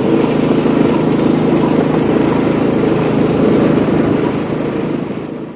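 Motor vehicle engine running steadily while under way, over a steady rushing noise. The sound fades out near the end.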